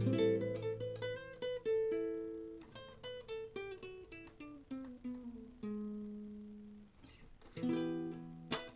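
Solo acoustic guitar: picked notes stepping down in a falling line, one low note left to ring about six seconds in, then strummed chords near the end.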